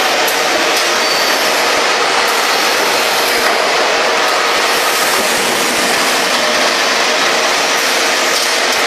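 Automatic paint-pail filling and conveyor line running: a steady machine noise with a few faint clicks.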